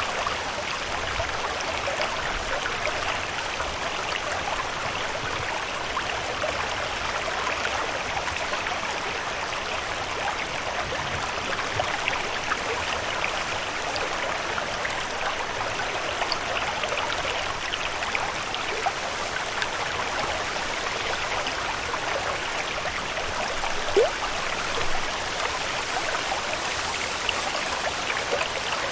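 Steady flowing-water ambience, an even rushing and trickling, with one brief sharp sound about 24 seconds in.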